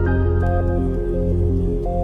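Background music in an ambient, new-age style: a sustained low bass drone under a repeating pattern of short synth notes, about four a second.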